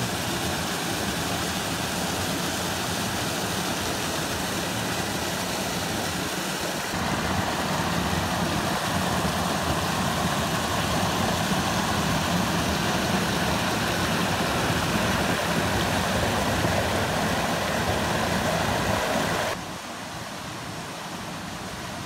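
Stream water rushing and splashing over rocks at a small waterfall: a steady hiss of white water. It gets louder about seven seconds in and drops to a quieter wash a couple of seconds before the end.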